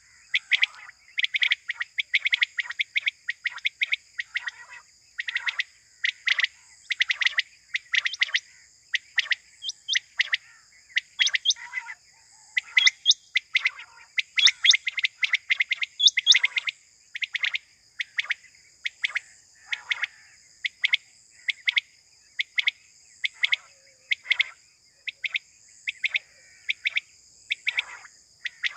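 Quail (batair) calling over and over in quick runs of short, sharp notes, with a steady high-pitched drone underneath.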